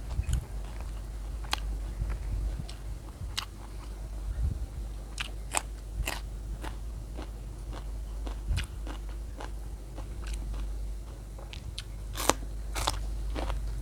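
A person chewing and biting food close to the microphone, with irregular crisp crunches and clicks.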